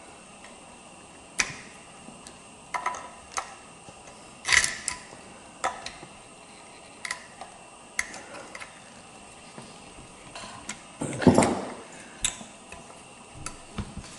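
Scattered small clicks, taps and scrapes of plastic and metal parts being handled as a speaker is worked into place inside an RC loader model, with louder rustling scrapes about four and a half seconds in and again around eleven seconds.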